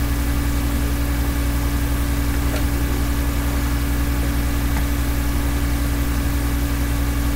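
Steady low droning hum made of several held tones, with a fast flutter in its lowest part and an even loudness throughout.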